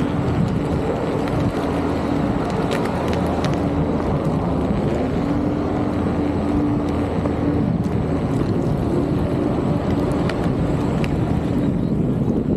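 Begode MTen4 electric unicycle riding on pavement: a steady rolling rumble from the tyre and a hum from the hub motor that comes and goes, with wind rushing over the microphone.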